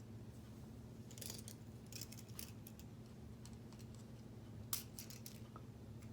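Plastic K'nex pieces clicking and rattling lightly as spokes are handled and snapped onto their connectors: a few scattered light clicks, the sharpest near the end.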